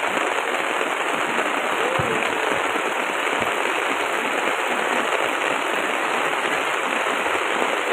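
Heavy rain falling, a steady dense hiss of drops.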